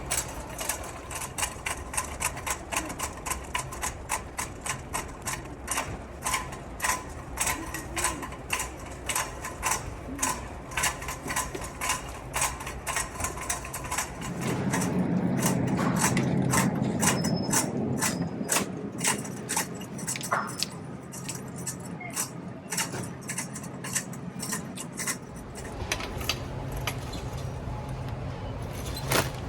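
Shopping cart with a faulty wheel, clunking rhythmically a few times a second as it is pushed along. For about ten seconds midway a louder rolling rumble joins the clunks.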